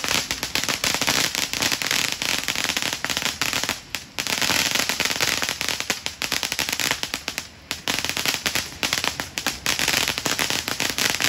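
Crackling ground fireworks spraying sparks: a loud, dense, rapid crackle of small pops, broken by two short lulls about 4 and 7½ seconds in.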